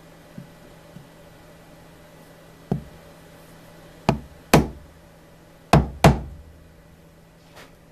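Five sharp knocks of a steel blade being set down and tapped against MDF: one, then two quick pairs, with a few lighter clicks before and after.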